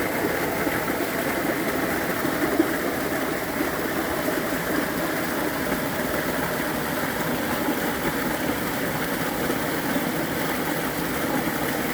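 Waterfall pouring into a valley stream: a steady, unbroken rush of water.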